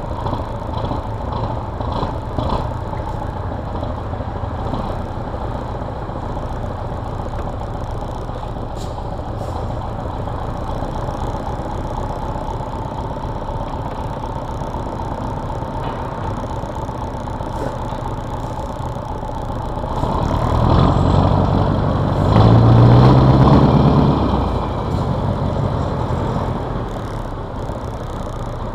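Scania 142M's 14-litre V8 diesel running steadily at low speed, heard from the cab roof beside its exhaust stack. About twenty seconds in it pulls harder for a few seconds, louder and rising in pitch, then eases back.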